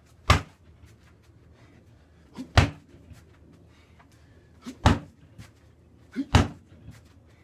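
Free-standing heavy bag taking four hard leg strikes, about one every two seconds, each a sharp thud.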